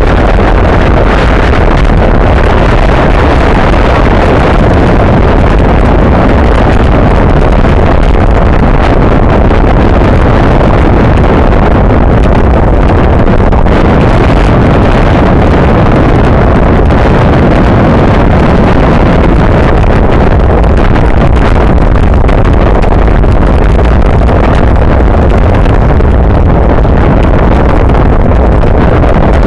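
Wind rushing over a bicycle-mounted camera's microphone at racing speed: a loud, steady rumble, heaviest in the low end.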